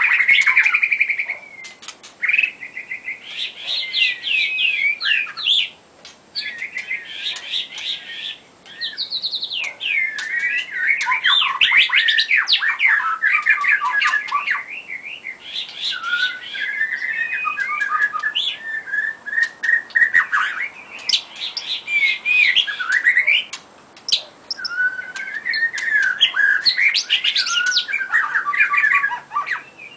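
White-rumped shama singing a long, varied song of whistled phrases and rapid note runs, with a few short pauses between bursts.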